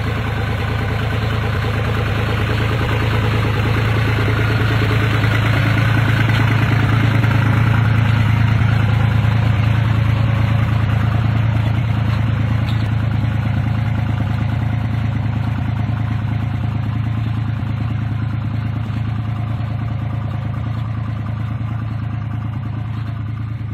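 Tractor engine running steadily at a constant speed while working a hydraulic sensor-guided inter-row hoe. It grows louder over the first eight seconds or so, then slowly fades.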